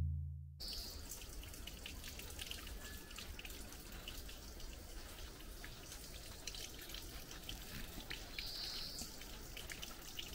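A deep drum hit from the intro music fades out in the first half-second. Then faint forest ambience follows, with a steady hiss and many small scattered ticks.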